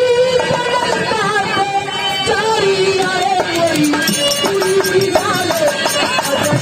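Birha folk music: a melody that slides and steps downward over a steady run of hand-drum strokes.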